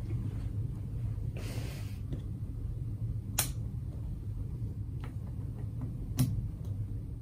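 Steady low hum of room tone, with a short hiss about a second and a half in and two sharp clicks, one about three and a half seconds in and one near the end.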